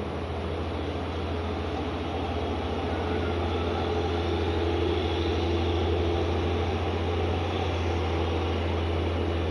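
Heavy cargo truck's engine running steadily as it works slowly round a steep hairpin bend, growing a little louder toward the middle.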